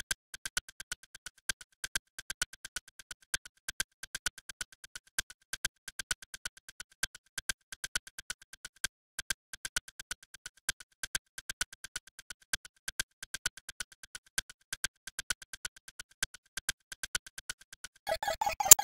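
Electronic alarm sound made of rapid short blips on one high pitch, about five a second in an uneven pattern. Near the end a different, louder alarm tone with a wavering pitch cuts in.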